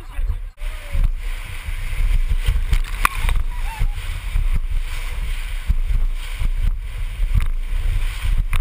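Whitewater rushing around a raft in rapids, with heavy low rumbling and thumps on the microphone. There is a brief shout about three seconds in.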